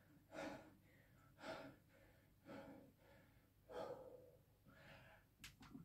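Faint, heavy, gasping breaths from a man straining through a long high-rep set of barbell back squats, roughly one breath a second, with two quicker breaths near the end.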